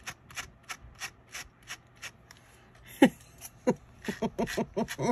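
A brush stroking through crocheted yarn, about three short scratchy strokes a second, as the yarn strands are brushed out into fluffy fur. In the last two seconds a few short sounds slide down in pitch, the loudest about three seconds in.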